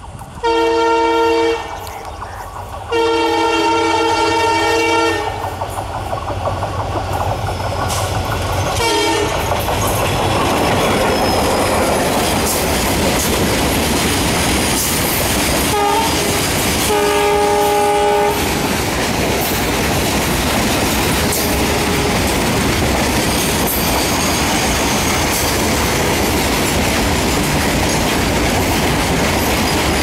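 WDG-4 diesel locomotive sounding its two-note air horn, a short blast then a longer one, and a brief blast as it passes about nine seconds in. A freight train of BCNA covered wagons then rolls by with a steady clatter of wheels on rail, and the horn sounds twice more around 16 and 17 seconds in.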